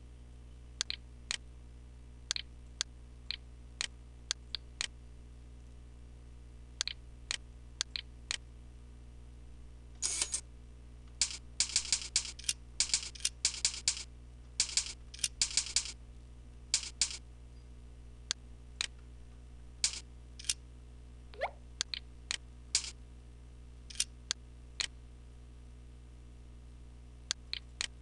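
Computer mouse clicking: single clicks every second or so, with a dense run of rapid clicks from about ten to sixteen seconds in, over a low steady hum.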